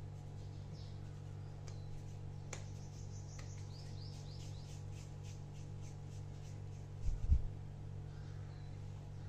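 Hands pinching off and rolling soft maida dough into small balls, a run of faint quick ticks and squelches, with a low thump about seven seconds in, over a steady low hum.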